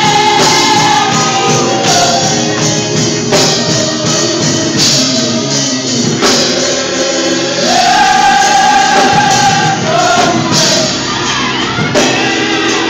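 A large gospel choir singing in full voice. The voices hold a long high note near the start and again about eight seconds in.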